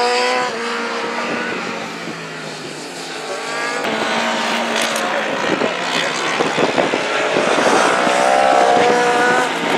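Racing superbike engines at high revs, the note rising and falling with throttle and gear changes as the bikes pass. Near the end one engine climbs in pitch as it accelerates.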